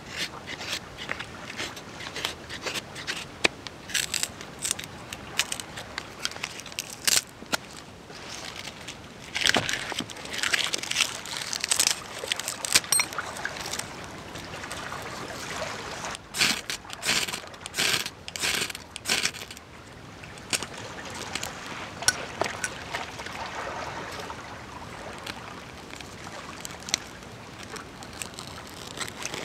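Split wooden kindling sticks clacking and knocking together as they are stacked by hand into a fire lay, in irregular clusters of sharp taps. A steady faint hiss runs underneath.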